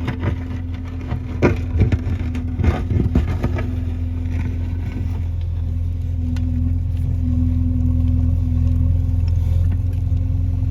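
Diesel engine of a JCB 3DX backhoe loader running steadily, with a few sharp knocks in the first few seconds.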